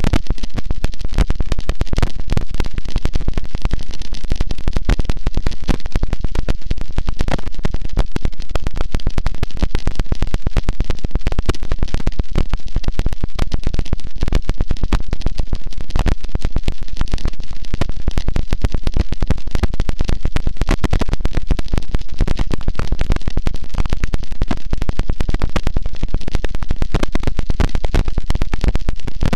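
Harsh noise wall: a loud, dense, unchanging mass of distorted static and crackle.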